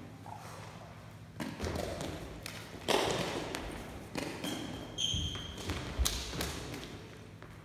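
A lábtoll-labda rally on a gym floor: sharp taps and thuds as the shuttlecock is kicked back and forth and feet land, about four strikes in all with a brief echo after each. Short high shoe squeaks come around the middle.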